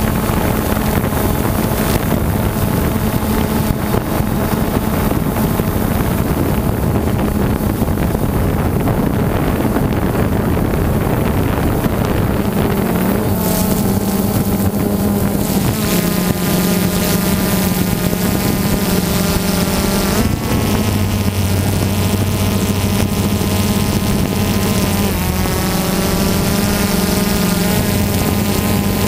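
DJI Phantom 2 quadcopter's four electric motors and propellers buzzing steadily, heard through the GoPro mounted on it, with wind noise on the microphone. The pitch shifts a few times in the second half as the motor speeds change while it manoeuvres.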